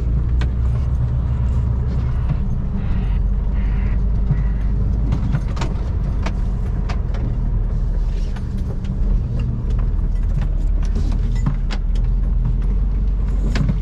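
Heavy tipper truck's diesel engine running steadily, heard from inside the cab, with many light clicks and rattles.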